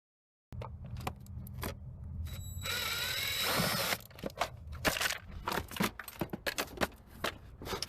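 Clicks, knocks and rattles of hand tools and loose parts as a car's dashboard is taken apart, over a steady low hum. About three seconds in comes a louder, harsh grating noise lasting about a second.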